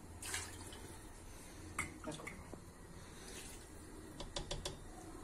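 Faint clinks of a metal ladle against a stone-coated stew pot as broth is ladled in and stirred, a few scattered ones and a quick cluster near the end, over a low steady hum.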